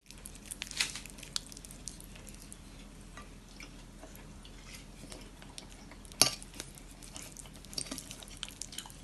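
Metal fork clinking and scraping on a ceramic plate while twirling creamy spaghetti, in scattered light clicks, with one sharp clink about six seconds in.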